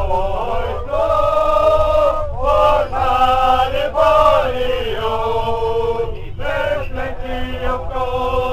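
A group of men singing a chant together in unison, holding long notes, over the steady low rumble of a moving train.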